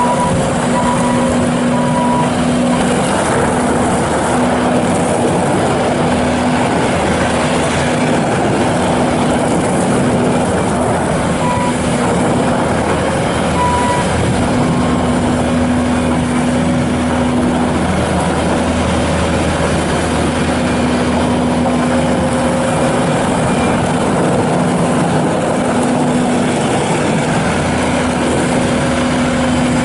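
2016 Bobcat S750 skid steer loader's diesel engine running steadily under load with a hydraulic whine as the machine is worked. The reverse alarm beeps briefly near the start and again about 14 seconds in as it backs up.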